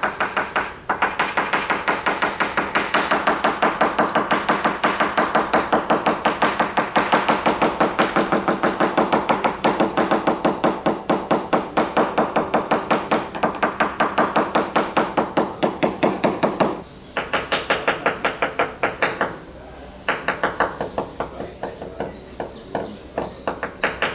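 Small hammer rapidly tapping a catamaran's fibreglass hull, about five light knocks a second, each with a short ring, pausing briefly twice near the end. This is a tap test, sounding the gelcoat and laminate for voids, delamination and dry fibreglass.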